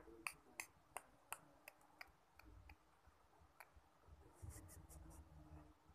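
Faint sharp clicks or snaps in a string, about three a second for the first two seconds and then sparser. A soft, faint breathy sound comes about four and a half seconds in as a newborn baby yawns.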